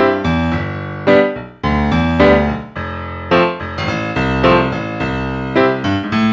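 Background music: a piano tune of separately struck notes.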